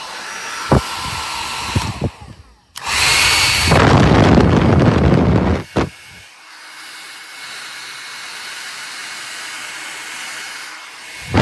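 Revlon 1875W compact hair dryer blowing with a steady rush of air. It gets louder from about three seconds in to five and a half seconds, then runs quieter until it cuts off near the end.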